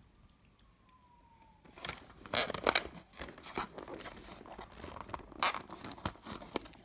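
Cardboard door of a chocolate advent calendar being torn open and its thin plastic chocolate tray pulled out. It makes an irregular run of tearing and crinkling crackles that starts about two seconds in.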